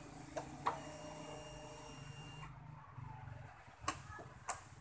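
The fuel-injected Honda Vario 125's electric fuel pump whirs steadily for about two seconds, then cuts off abruptly. It is priming the fuel line, emptied by disassembly, after the ignition is switched on. Sharp clicks from the key switch come just before it starts and twice near the end.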